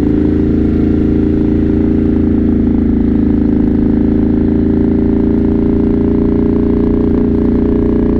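Motorcycle engine running at a steady engine speed, its pitch holding nearly constant.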